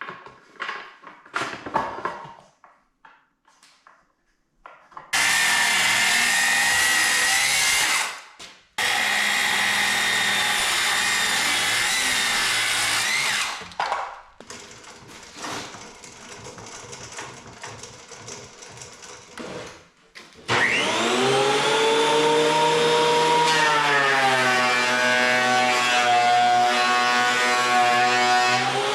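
Woodworking power tools running in several short, abruptly cut spans, with a clatter of wood and tools at first. Near the end a motor spins up, its whine rising in pitch, then runs steadily.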